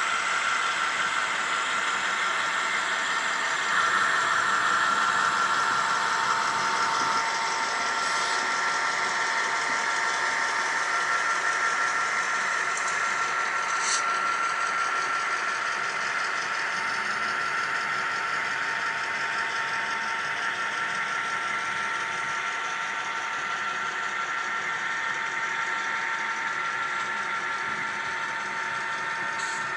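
HO scale model train running steadily on the layout track: a continuous mechanical whir with a steady whine, and a single sharp click about fourteen seconds in.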